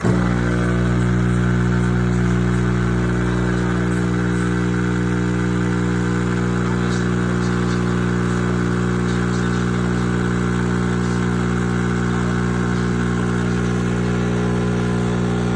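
Café Affetto automatic espresso machine running: a steady, even buzzing hum that starts and stops abruptly.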